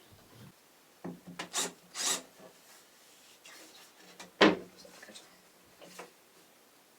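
Short knocks and scrapes of wood being handled on a wooden bed frame: a few quick taps and rubs, then one sharp, loud knock about four and a half seconds in.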